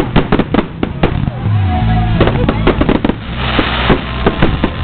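Fireworks going off in quick succession, a rapid string of sharp bangs, with a thicker spell of crackling about three and a half seconds in. Music plays underneath.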